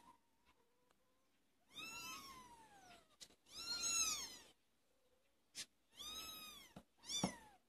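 Month-old kittens meowing: four high-pitched calls, each rising then falling in pitch, the last one short.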